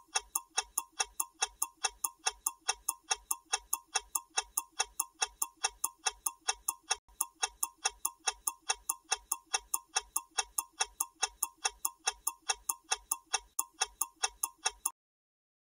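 Clock-ticking sound effect running under a 15-second quiz countdown timer: even, sharp ticks about four a second, stopping abruptly about 15 seconds in as the time to answer runs out.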